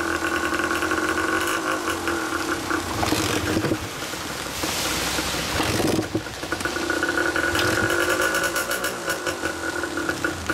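Kawasaki KDX125's single-cylinder two-stroke engine idling steadily through an RSV expansion chamber. About four seconds in, the steady note gives way to a rougher, hissier stretch for a couple of seconds before the even idle returns.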